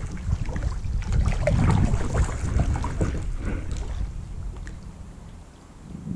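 Kayak paddle dipping and dripping in lake water, with wind rumbling on the microphone; both ease off near the end.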